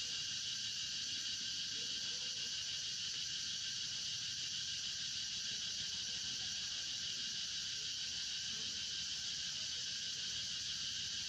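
Steady, high-pitched chorus of forest insects, a continuous drone with no breaks.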